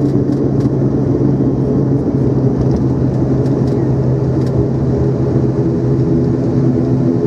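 Cabin noise of an ATR 72 turboprop airliner during landing: a loud, steady drone of the propellers and engines with a constant low hum over rushing airflow noise.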